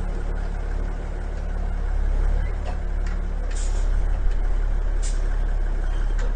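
Heavy IH Paystar 5000 dump truck running steadily with a deep engine hum, with two short hisses of air about three and a half and five seconds in.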